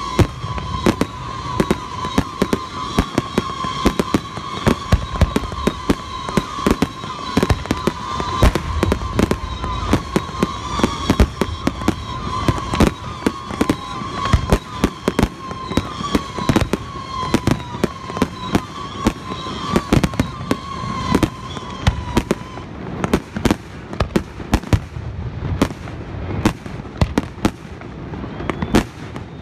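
Fireworks finale: aerial shells launching and bursting in a dense, rapid barrage of bangs, several a second. A steady high wavering tone runs under the bangs and stops about three-quarters of the way in.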